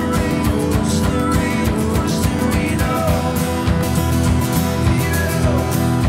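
Live acoustic soft-rock performance: two acoustic guitars strummed in a steady rhythm, with a sung melody over them.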